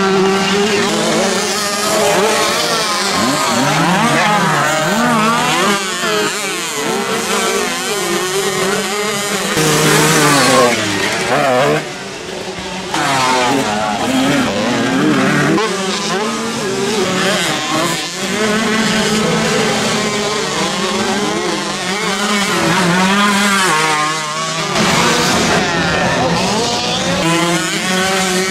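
Several motocross dirt-bike engines revving, overlapping, their pitch rising and falling again and again as the bikes accelerate and back off around the track.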